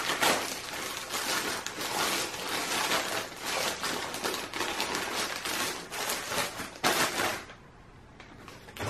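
Plastic poly mailer bag crinkling and tearing as it is ripped open by hand. It is a dense run of crackles that dies down about seven and a half seconds in.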